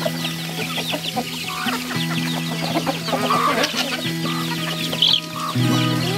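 Free-range hens and a rooster clucking as they peck at scattered grain, with a brood of chicks chirping rapidly, and one louder call about five seconds in. Background music with held low notes plays underneath.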